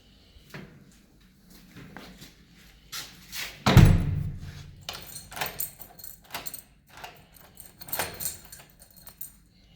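Door and lock being worked by hand: scattered clicks, a heavy thud a little under four seconds in, then a run of sharp metallic clicks and rattles.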